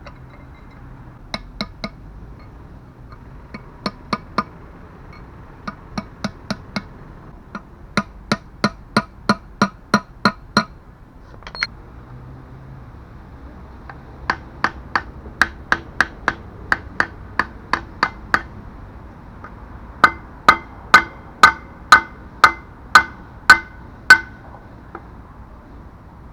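Hammer blows on a truck's brake shoe, sharp metallic strikes with a ringing note, in runs of a few up to about nine at roughly two a second, the last run the loudest. It is the rivet work of relining the shoes: old linings being cut off or new ones riveted on.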